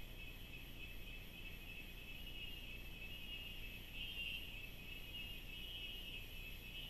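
Steady insect chorus in the forest, an even high-pitched buzz that swells slightly about four seconds in and again near the end.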